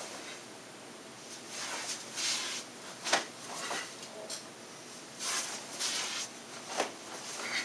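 Karate uniform (gi) swishing and snapping with the sharp strikes and turns of the Goju Ryu kata Saifa: a string of short, hissy swishes, the sharpest snap about three seconds in.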